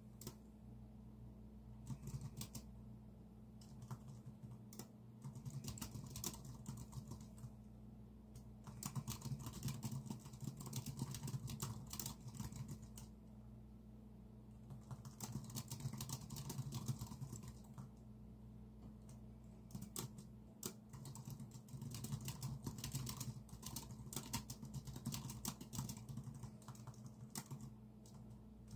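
Typing on a computer keyboard in uneven runs of rapid keystrokes, broken by pauses of a second or two. A steady low hum sits underneath.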